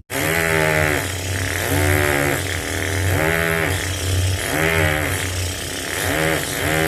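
Mouth-made sound effect by a beatboxer: a continuous low buzz with a pitched tone that rises and falls about five times, roughly every second and a half, like an engine being revved.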